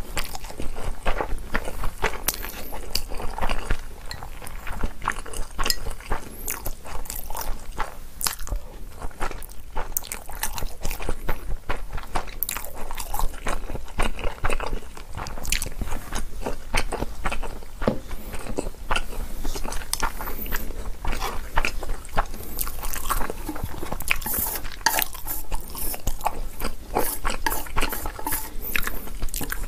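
Close-miked eating sounds: a person chewing mouthfuls of Chapagetti black-bean-sauce instant noodles, with many small, irregular wet mouth clicks and the odd tap and scrape of wooden chopsticks on the ceramic spoon and plate.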